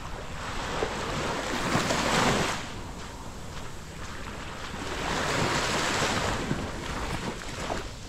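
Sea waves washing up on a sandy beach, swelling twice, with wind on the microphone.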